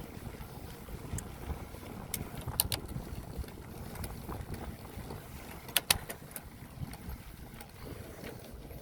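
Wind rumbling on the microphone and road noise from a bicycle riding along a paved bike path. Two quick pairs of sharp clicks or knocks, a little over 2.5 s in and near 6 s in, are the loudest sounds.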